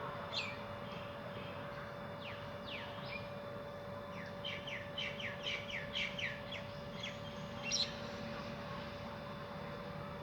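Small birds chirping: short, downward-sweeping calls, with a quick run of about ten of them in the middle and a louder call near the end, over a steady low hum.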